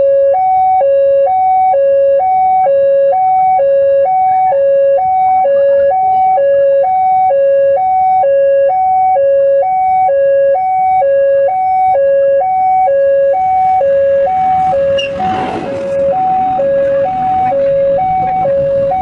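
Electronic two-tone warning alarm switching back and forth between a lower and a higher pitch, about one full cycle a second, steady throughout. A rushing noise swells in under it in the last third.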